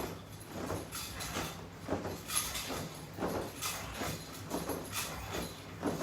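A person doing crunches on the floor with resistance straps: a run of short rustling, scuffing sounds from body, clothing and straps, roughly two a second.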